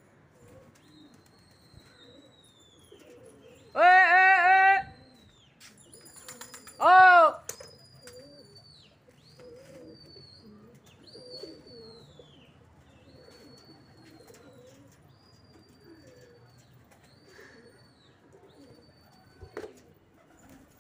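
A person's loud, drawn-out calls, twice, about four and seven seconds in, over a run of faint high bird chirps that fall in pitch, about one a second.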